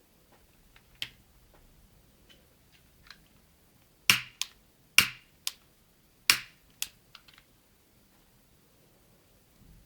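Sharp clicks of hard objects: a faint one about a second in, then about six loud ones in three pairs between about four and seven seconds, each pair a loud click followed by a softer one, with a few small ticks after.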